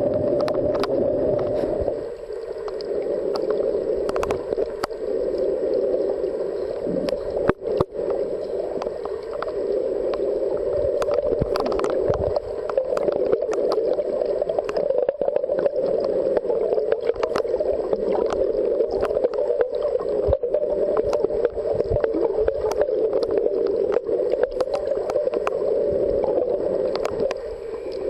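Underwater ambience picked up by a submerged camera: a steady, muffled rushing with many scattered sharp clicks and crackles.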